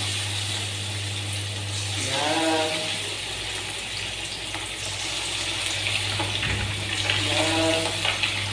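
Marinated chicken frying in hot oil: a steady sizzle with scattered crackles.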